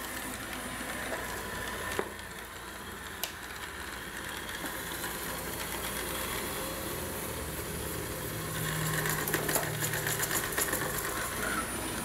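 ILIFE A4 robot vacuum running, a steady whir of its motor and brushes as it drives back and forth, stuck against a cabinet edge and unable to find its way to the dock. A couple of sharp clicks come about two and three seconds in, and the hum grows louder for a couple of seconds past the middle.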